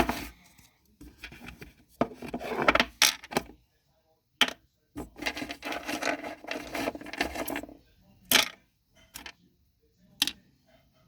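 Small plastic toy pieces being handled, rummaged through and set down: sharp clicks and clacks, with stretches of rustling and rummaging in between.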